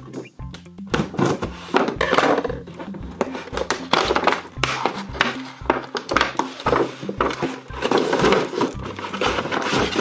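Toy packaging of plastic and cardboard rustling and crinkling as a doll is worked out of its box, over background music with a steady beat.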